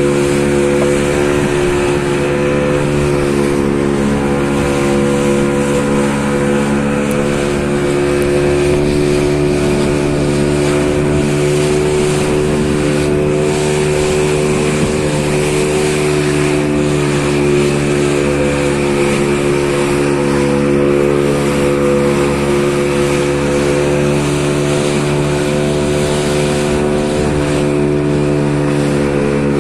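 Engine running steadily at an even speed, with no change in pitch.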